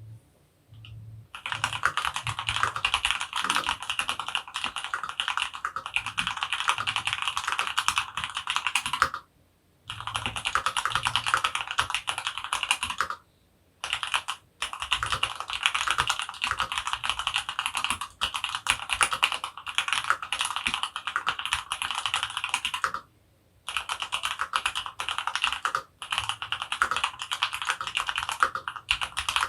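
Fast continuous typing on an Archon RE:AL Platinum FX mechanical keyboard with an aluminium plate and stock Lilac linear switches (lightly factory lubed, 62g springs), a quick stream of key clacks broken by a few brief pauses.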